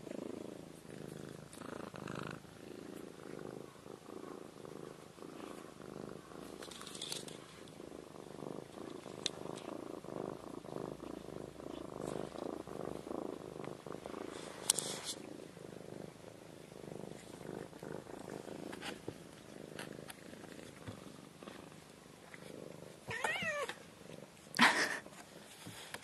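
A kitten purring steadily. Near the end there is a short call that bends in pitch, followed by a brief sudden louder sound.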